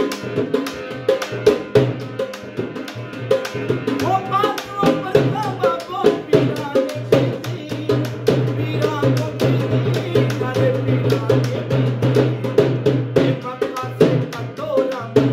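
A harmonium and a hand-played dholak performing folk music together. The harmonium holds a steady drone and chords while the dholak keeps a fast, busy rhythm. A man's voice sings a short phrase about four seconds in and again near the end.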